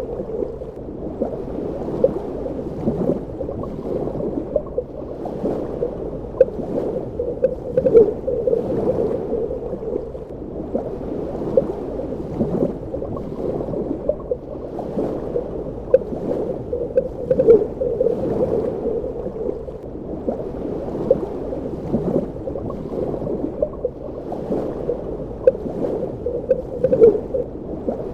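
Underwater ambience: a muffled, steady water rush with bubbling and gurgling, swelling about every five seconds.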